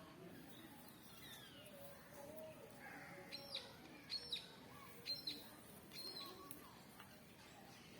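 Small birds chirping: faint gliding calls, then a run of short, high chirps in pairs a little past the middle.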